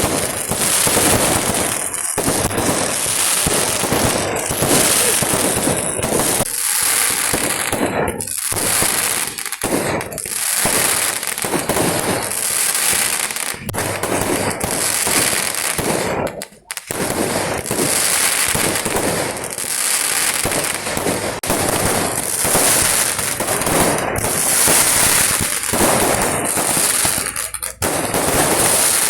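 Kerala fireworks (vedikettu) barrage: a dense, rapid, almost unbroken string of firecracker bangs, with only a brief lull a little past the middle.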